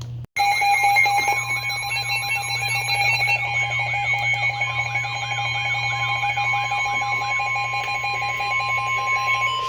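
Several weather alert radios sounding their alarms together as a new severe thunderstorm warning comes in: a rapidly pulsing beep, a steady high tone that joins about three seconds in, and a warbling siren repeating about twice a second that fades out near the end.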